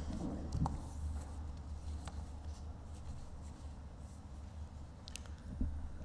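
Sheets of paper being handled and laid on a lectern close to its microphone: a few soft rustles and light taps over a steady low room hum.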